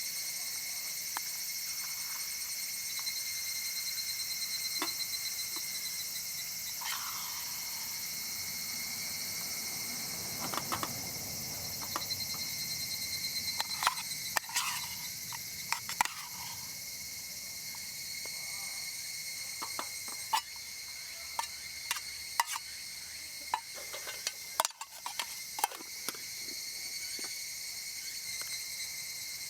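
Steady insect chorus of crickets or cicadas, several unchanging high-pitched drones, with scattered light clicks and knocks through it.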